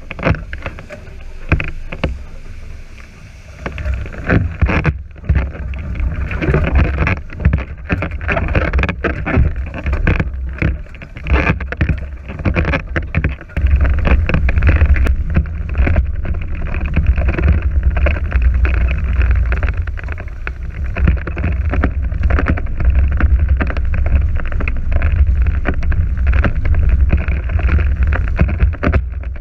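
Wind buffeting the microphone in a deep, gusting rumble over water rushing and splashing past the hulls of a NACRA 5.0 beach catamaran under sail. The wind rumble grows heavier about halfway through.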